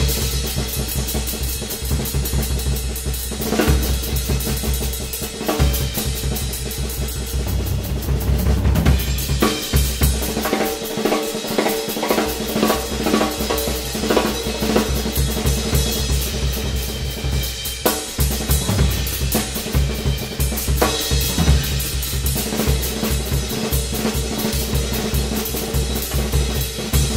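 Drum solo on a Ludwig drum kit: fast, dense strokes mixing bass drum, snare, toms and cymbals. The bass drum drops out for a moment about halfway through, then comes back in.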